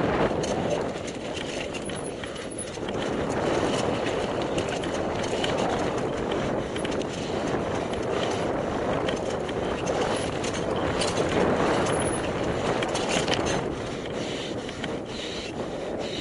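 Mountain bike riding down a trail: a steady rush of tyres on dirt and air over the microphone, with frequent clicks and rattles from the bike over bumps.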